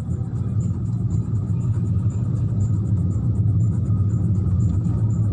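Steady low rumble of a Honda car's engine and road noise, heard from inside the cabin while driving.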